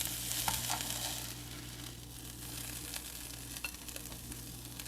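Onions and mushrooms sizzling in a frying pan as a spatula stirs and scoops them out, with a few light scrapes and clicks over a steady hiss.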